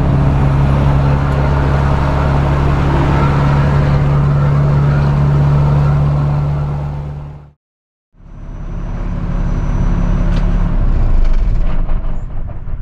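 Straight truck's diesel engine and tyre noise heard from inside the cab at highway cruise, a steady hum that fades out about seven and a half seconds in. After a brief silence, a lower steady rumble inside the parked cab.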